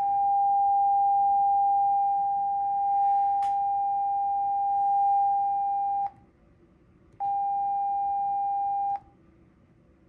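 Steady 800 Hz sine test tone from a laptop speaker, with faint overtones. It cuts off about six seconds in, comes back a second later for nearly two seconds, then stops again, with a faint click about three and a half seconds in. The microphone's decoder reads this tone as the third of three command bits.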